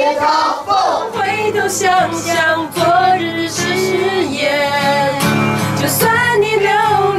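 A woman sings a folk song into a microphone, accompanied by a strummed acoustic guitar that comes in about a second in.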